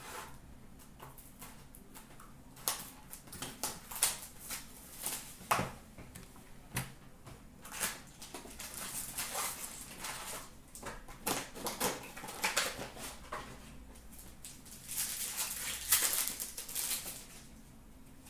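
Upper Deck Trilogy hockey card box and its foil card pack being opened by hand: irregular crinkling, tearing and tapping of cardboard and wrapper, busiest around the middle and again near the end.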